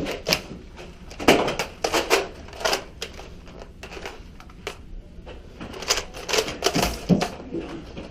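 Irregular sharp clicks and knocks in small clusters, a dozen or so over several seconds, from foam-dart blasters being handled and fired in an office.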